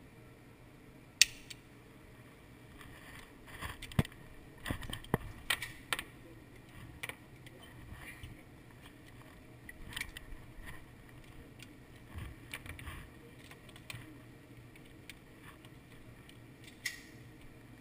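A single handgun shot about a second in, then scattered metallic clicks, knocks and rattles as the pistol is handled between shots.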